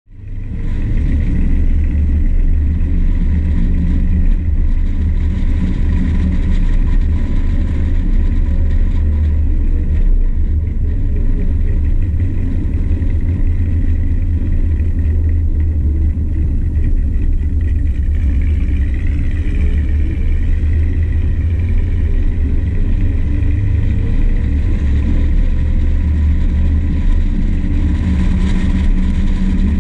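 1964 Plymouth Fury wagon's 383 big-block V8 running with a steady, deep rumble that fades in over the first second.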